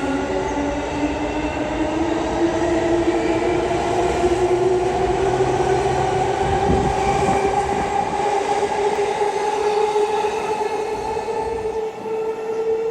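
E233-5000 series electric train pulling away, its traction motor whine rising slowly and steadily in pitch as it gathers speed, over wheel and rail rumble.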